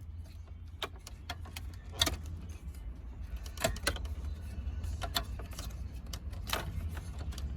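Plastic clicks and rattles of car-radio wiring connectors being unplugged and the radio unit being handled, a scatter of sharp snaps with the loudest about two seconds in, over a steady low hum.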